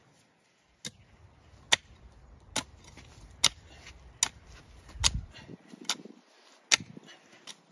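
Long-handled garden hoe chopping into dry soil: about nine sharp strikes, evenly spaced just under a second apart.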